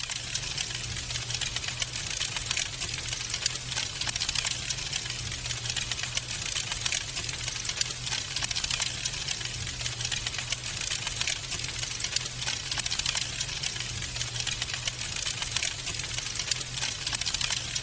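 Wood fire in a fireplace crackling, with dense, rapid small pops and snaps over a low, steady rumble.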